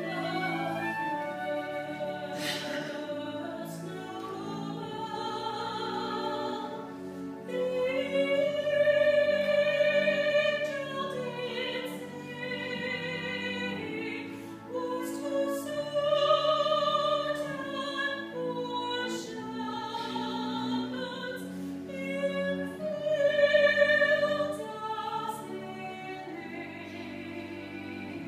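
Classical-style vocal duet singing long held notes with vibrato, accompanied by flute, cello and pipe organ. It swells loudest twice.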